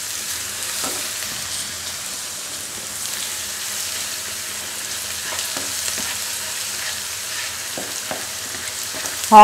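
Chopped onions and ginger-garlic paste sizzling in hot oil in a nonstick frying pan, stirred with a plastic spatula that scrapes and ticks against the pan now and then. A low steady hum runs underneath.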